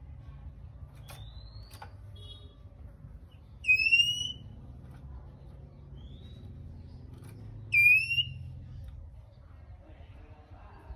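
Male oriental magpie-robin giving loud, shrill rising calls, two of them about four seconds apart, with fainter short rising notes in between, over a low steady hum.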